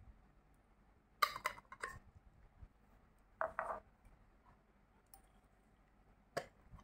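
Glass jars and mothballs clinking as the jars are handled: a short clatter about a second in, another about three and a half seconds in, and a single sharp click near the end.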